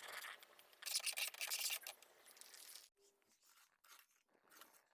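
Faint scraping and rubbing of a utensil against cookware, as in stirring thick jackfruit jam in a pot: a brief scrape at the start and a longer one about a second in.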